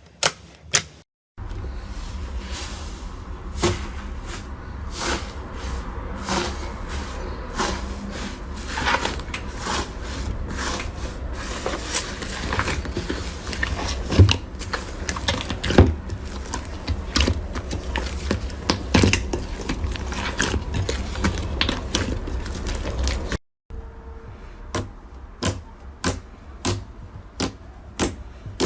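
Slime being pressed and worked by hand, giving an irregular run of sharp clicks and crackling pops over a low hum; the sound cuts out twice, briefly, where one clip gives way to the next.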